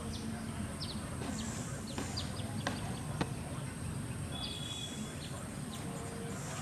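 Small birds chirping: short, high calls repeated every second or so over a low background murmur, with two light clicks near the middle.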